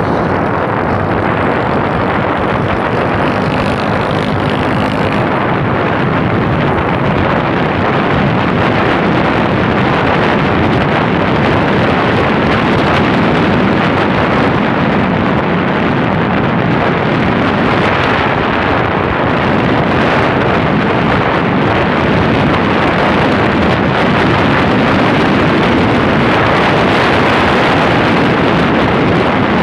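Wind rushing over the microphone on a moving motorcycle, loud and steady, with the motorcycle's engine and road noise beneath it.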